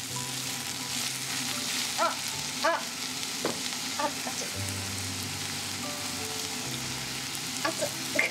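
Carrot and mushrooms sizzling in oil as they sauté over medium heat in an enamel-lined pot, with a steady frying hiss. A stirring utensil scrapes and knocks against the pot a few times.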